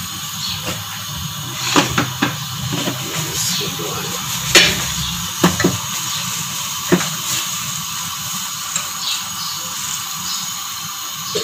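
Pot of chicken and black-eyed pea curry simmering on the stove with a steady hiss. A wooden spoon knocks sharply against the pot several times, loudest a little before the middle.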